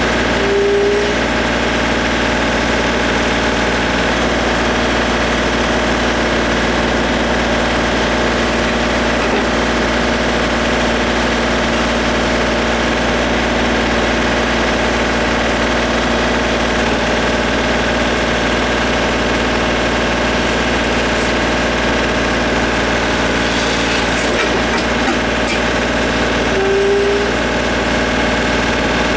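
Compact tractor-loader-backhoe's diesel engine running steadily with an even drone. A short squeak is heard about a second in and again near the end.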